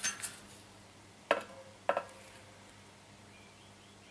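A DT Swiss R24 Spline disc rear wheel set down on a plastic digital kitchen scale: a few light clicks, then two sharp knocks about half a second apart, the second with a brief ring.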